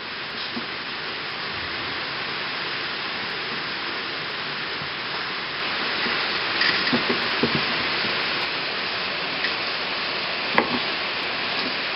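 Steady rain hiss that grows heavier about halfway through. A few light knocks from kittens playing around a cardboard box, and one sharper knock near the end.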